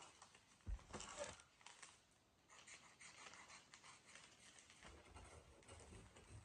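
Faint crinkling and rustling of a clear plastic icing bag being opened and handled, with a short soft knock just under a second in.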